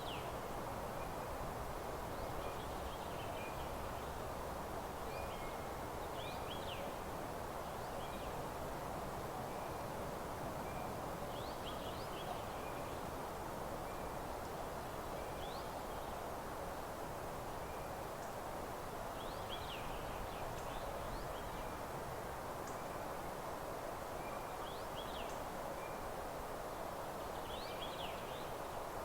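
Small birds singing: short high chirps and trills every second or two, over a steady even background hiss.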